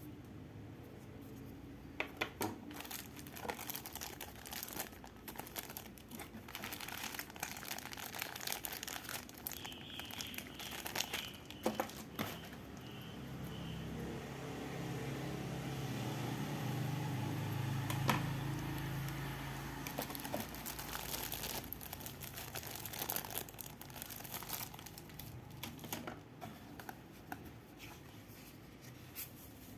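Plastic packaging of a Tamiya Mini 4WD kit crinkling and tearing as it is handled and opened, with many small clicks and knocks, louder in the middle.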